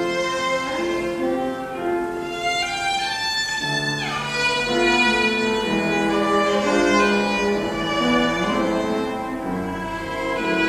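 Piano trio playing a classical piece, the violin carrying a sustained melody over cello and piano.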